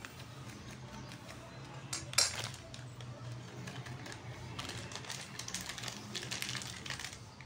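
Plastic packet crinkling and rustling in the hand as a metal spoon scoops from it, with a sharp clink of the spoon on the steel sieve about two seconds in and a run of small crackles in the second half.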